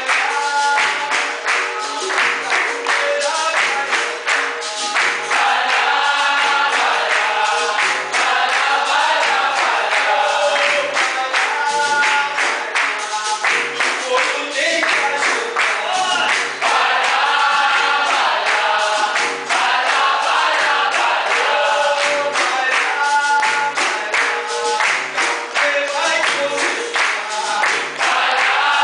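Live capoeira roda music: a group singing in chorus over berimbaus and an atabaque drum, with steady rhythmic hand-clapping.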